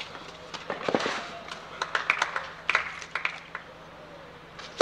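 Tennis rally on a clay court: racquets hit the ball back and forth, with sharp strikes and ball bounces about every half second to second. A short lull follows near the end, then another sharp hit.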